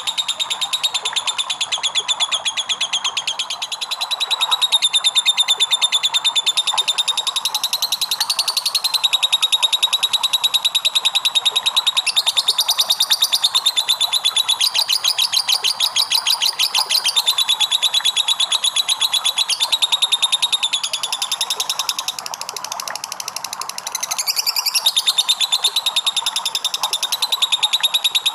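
Lovebird singing a long, rapid chattering trill (the 'ngekek' song). It is continuous and high-pitched, shifts pitch every few seconds, and softens briefly about two-thirds of the way through.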